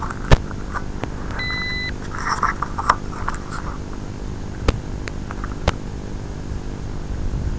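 Handling noise picked up by a crashed FPV quad's onboard camera: a steady low electrical hum, several sharp knocks and scuffs as it is moved, and a short high beep about a second and a half in.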